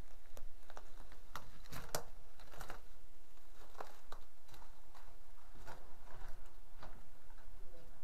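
Irregular crunching footsteps and scuffs on a concrete floor strewn with grit and dry pine needles, heard inside a small concrete room.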